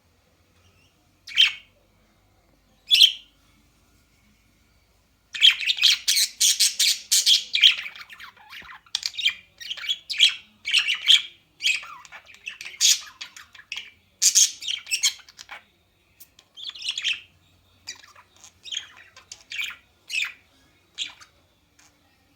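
A bird calling in short, high chirps. Two single calls come in the first few seconds, then a rapid run of calls starts about five seconds in and continues more sparsely toward the end.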